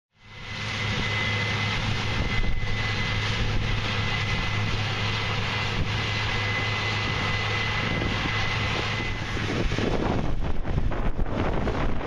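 Case IH 8120 combine running steadily as it harvests standing corn, a steady engine hum with a thin high-pitched whine over it that drops away about three-quarters of the way through. In the last few seconds wind buffets the microphone.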